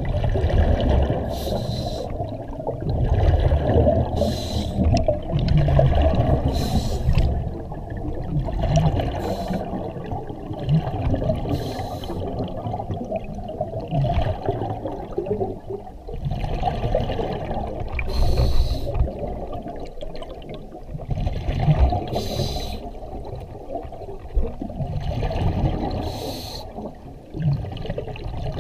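Scuba regulator breathing heard underwater: breaths drawn through the demand valve and bursts of exhaled bubbles, repeating every few seconds.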